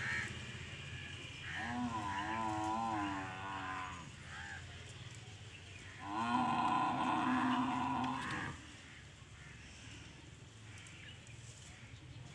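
Cattle mooing: two long calls, the first wavering in pitch, the second steadier and louder about six seconds in, over a steady low hum.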